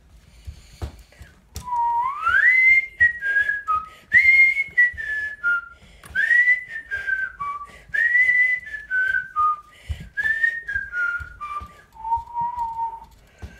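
A person whistling a tune: a rising slide starts about two seconds in, then comes a run of short phrases that each step downward, and near the end a longer held lower note.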